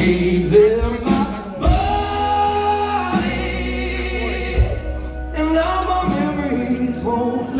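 Live rock band performing a slow, bluesy song: a male lead singer holds long sung notes over bass guitar, electric guitar and occasional drum hits.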